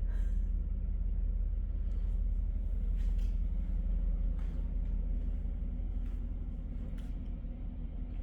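A large engine running steadily with a low, even rumble, with a few faint clicks over it; it eases off slightly near the end.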